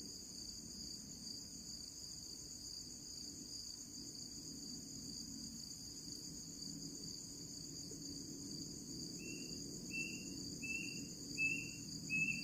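Steady shrill chorus of night insects, crickets, over a low background hum. About three-quarters of the way in, a short high call starts repeating about one and a half times a second.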